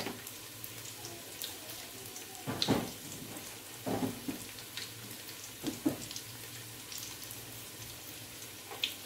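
Shallots and whole spices (cinnamon stick, star anise) frying in oil in an aluminium pot, a soft steady sizzle, with a few light knocks of utensils.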